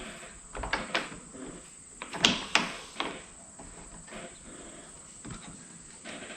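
A handful of sharp clicks and knocks, the loudest about two seconds in, as a soft-top side rail and its turn knob are handled and fitted at a Jeep's sport bar.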